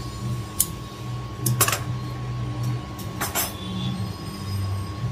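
Cotton blouse fabric rustling and a few short sharp handling sounds as cut pieces are laid out and lifted on a sewing table, over a steady low hum.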